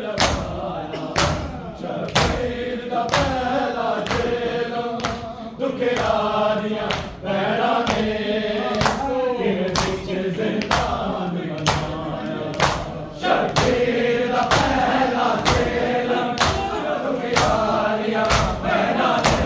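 Male voices chanting a Punjabi noha (mourning lament) in chorus, with the regular thuds of hands striking chests (matam) keeping a steady beat.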